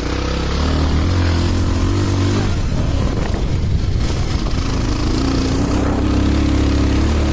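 Bajaj Pulsar 220F's single-cylinder engine running under load as the motorcycle is ridden along a rutted dirt track, with wind noise on the microphone. The engine note eases off in the middle and pulls again after about five seconds.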